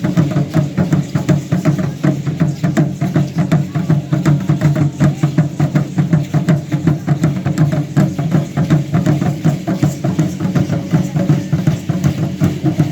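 Aztec dance drums beaten in a fast, steady rhythm, about four strokes a second, each stroke with a deep booming tone.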